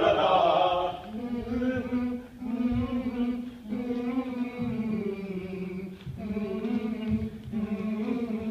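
A group of men singing a repeated 'la la la' chant together, in short held phrases; loud for about the first second, then quieter.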